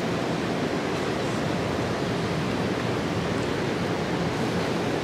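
Steady rushing outdoor noise, even throughout, with no distinct events.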